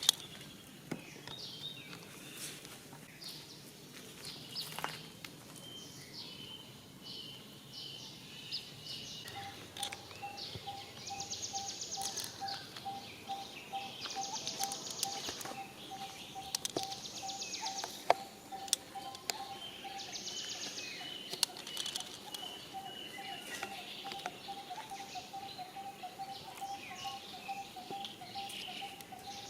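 Forest ambience of birds chirping and calling, with bursts of rapid high insect trills. About nine seconds in, a steady, rapidly repeated lower note starts and keeps going. Scattered faint clicks run through it.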